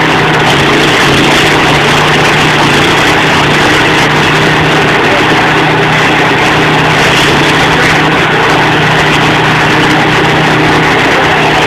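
Stump grinder's engine running steadily at a constant speed, a loud, even drone.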